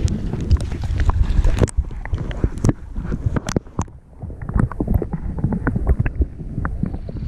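Sea water sloshing and splashing against a camera held at the surface, with sharp clicks. About two seconds in the camera goes under and the sound turns muffled, with scattered clicks and crackles of water moving around the housing.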